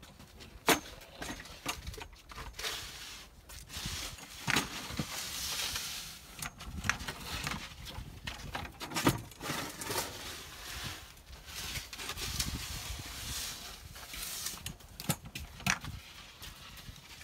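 Snow shovels scraping and knocking on pavement while snow is cleared, in irregular strokes with sharp knocks.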